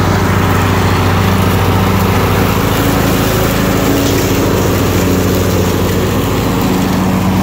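Lawn mower engine running at a steady speed, a constant drone while the grass is being cut.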